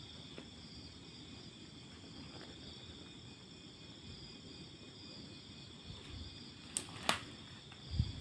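Insects, crickets by their sound, chirring steadily on a high pitch. Near the end come two sharp clicks a fraction of a second apart, then a low thump.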